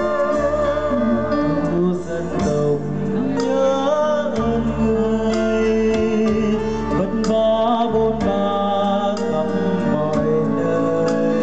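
A man sings a Vietnamese ballad into a microphone, his voice wavering with vibrato, over a small live band with bass and electric guitar and regular percussion strikes.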